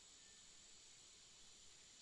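Near silence: a faint, steady high-pitched hiss of outdoor nature ambience, with no bird call in these seconds.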